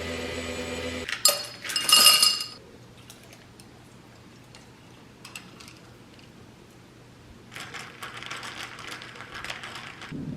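Background music cuts off about a second in, followed by a loud clatter of hard objects clinking together with a ringing tone. Near the end there is a soft rushing noise lasting a couple of seconds.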